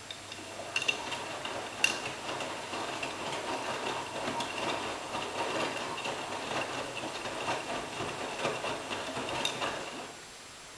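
AEG Lavamat 86760 front-loading washing machine tumbling coloured laundry in its wash water: the drum turns for about ten seconds with a steady swishing of wet laundry over a faint motor hum, then stops. A few sharp clicks come about one and two seconds in and again just before it stops.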